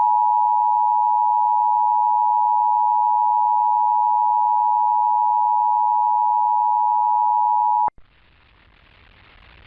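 Emergency Alert System attention signal: the two-tone 853 and 960 Hz alert tone held steady for about eight seconds, cutting off abruptly near the end. Faint broadcast hiss follows.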